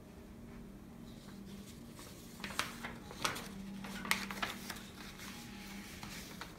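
Quiet room tone with a faint steady low hum, and a scattering of light clicks and clinks from about two and a half to five seconds in.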